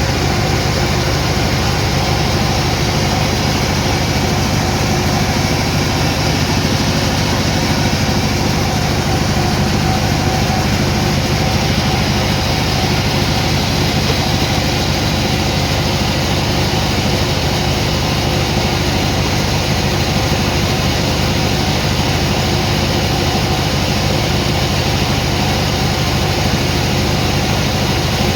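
Sawmill machinery running steadily, a loud low engine drone that holds the same pitch throughout.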